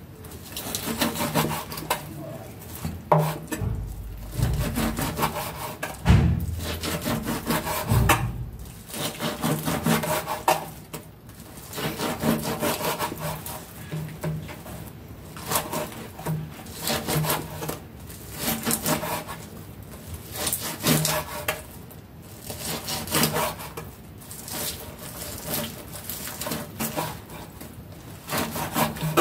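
Large kitchen knife sawing and slicing through spongy raw pig lung on a wooden cutting board, with repeated strokes and the blade rubbing and knocking on the wood. A few duller thumps come between about four and eight seconds in.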